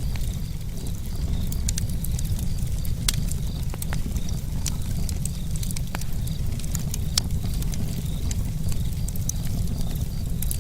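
Campfire burning, with frequent sharp crackles and pops from the wood over a steady low rumble.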